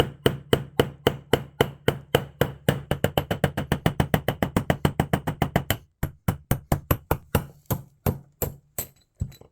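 Hammer tapping a screw against a pot to knock a hole through it: rapid sharp taps, about four or five a second, that slow to spaced-out, uneven taps after about six seconds.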